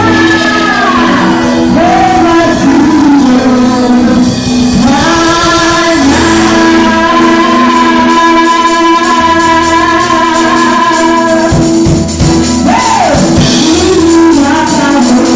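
Live gospel music: a woman sings lead into a microphone over a band with drums and keyboard, the melody holding long notes. The recording is loud throughout.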